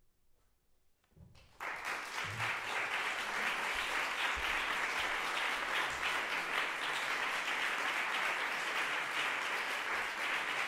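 Near silence, then an audience breaks into applause about a second and a half in, a dense steady clapping that carries on without letting up.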